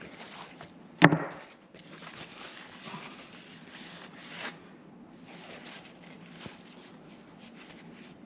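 A pick scraping old hardened grease and sawdust out of a ball bearing, with a sharp click about a second in and a softer one a few seconds later.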